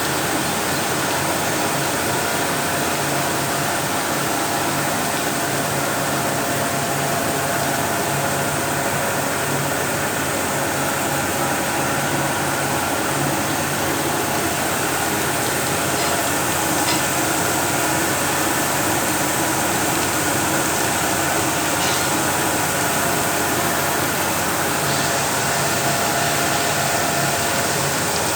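Rice mill machinery running steadily: a constant rushing noise with a low hum.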